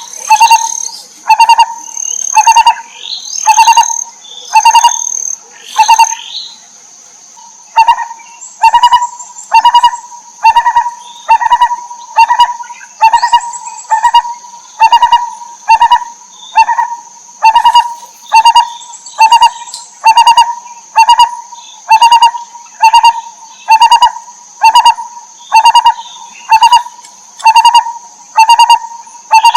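A barbet calling one low note over and over, about one and a half a second, with a short break about seven seconds in. A steady high-pitched whine runs beneath it.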